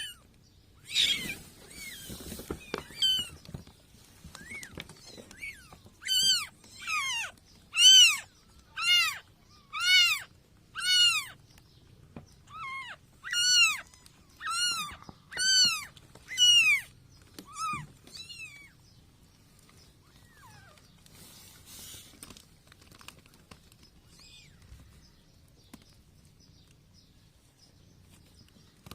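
Young kittens mewing: a run of high-pitched cries that rise and fall in pitch, about one a second, dying away after about 18 seconds. Brief rustling near the start and again after about 21 seconds.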